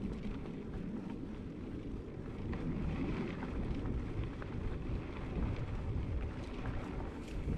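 Wind buffeting the microphone as a steady low rumble, with faint scattered ticks over it.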